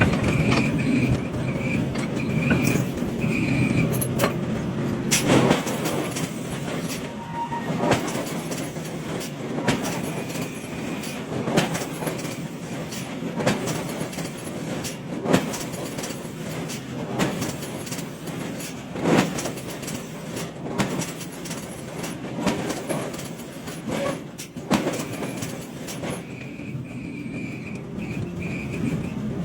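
Heavy hydraulic forging machinery running with a steady mechanical din, punctuated by irregular metal clanks and thuds. A high steady whine comes and goes near the start and again near the end.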